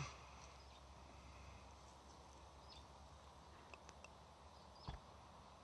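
Near silence outdoors: a steady low background hum with a few faint, short bird chirps, and a single soft knock near the end.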